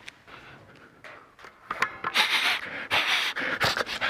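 A man sniffing hard and fast, like a sniffer dog, in a quick run of short noisy sniffs, about four a second, that starts after a quiet first second and a half.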